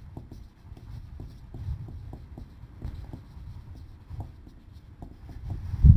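Marker pen writing on a whiteboard: a string of short, irregular taps and scratches from the pen strokes over a low rumble.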